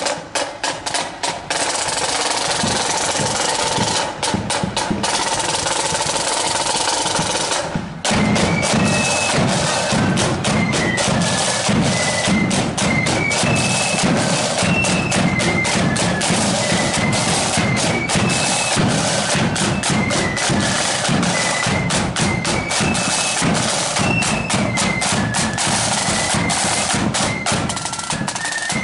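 A marching flute band: snare drums play alone for about the first eight seconds, then the flutes come in with a high tune over the snares and bass drum.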